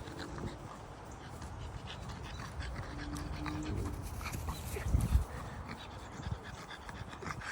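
Bulldog making breathing and vocal sounds during rough play, with a short whine-like tone twice. A heavy thump about five seconds in.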